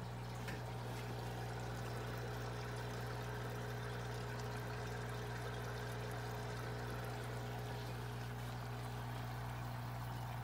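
Small aquarium running: a steady low hum from its equipment, with water trickling and bubbling over it.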